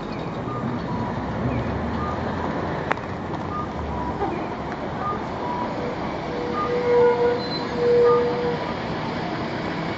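City bus left-turn warning chime from its voice-announcement unit's external speaker, sounding a two-note falling 'pa-pon' about every second and a half over steady traffic noise while the left indicator is on. Two louder, lower held tones sound about seven and eight seconds in.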